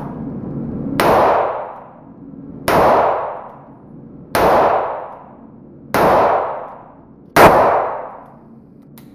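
Ruger GP100 .357 Magnum revolver fired five times, about one and a half seconds apart, each shot ringing out in the enclosed range. A small click follows near the end.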